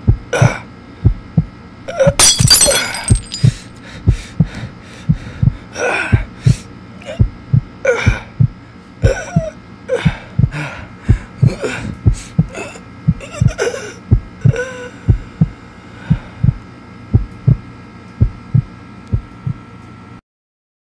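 Heartbeat sound effect, a steady series of low thuds, with heavy, gasping breaths over it. A short burst of noise comes about two seconds in, and all of it cuts off abruptly near the end.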